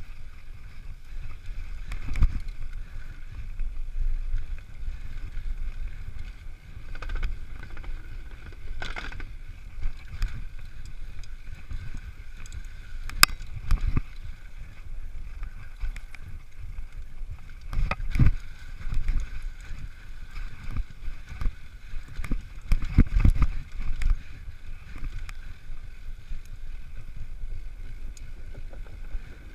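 Mountain bike riding fast down a dirt trail: a continuous rumble of tyres and wind noise, broken by frequent irregular knocks and rattles as the bike hits bumps, with the loudest sharp clacks about 13, 18 and 23 seconds in.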